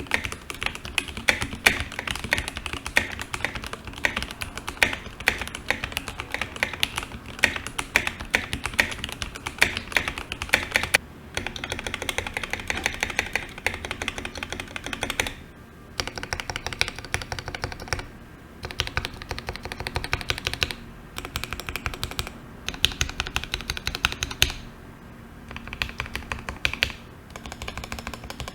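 Keychron K8 Pro mechanical keyboard with red linear switches and PBT keycaps being typed on: a fast, continuous clatter of keystrokes, broken by a few brief pauses.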